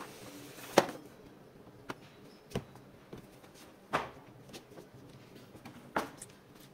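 Packaging being handled in an unboxing: about five sharp knocks and taps spread over several seconds, the loudest about a second in, with faint rustling between them.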